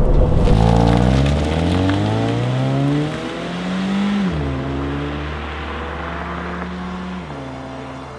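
2013 Scion FR-S's 2-litre flat-four boxer engine accelerating away: the revs climb, fall sharply about four seconds in as it changes up a gear, hold steady, then drop again near the end. The sound fades as the car pulls away.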